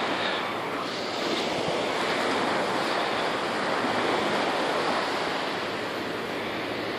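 Steady hiss of wind and surf on an open beach, with no distinct events.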